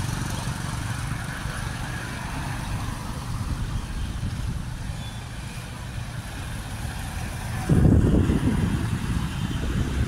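Street traffic: motor vehicle engines running as a steady low rumble, with a sudden, louder, uneven low rumble starting near the end.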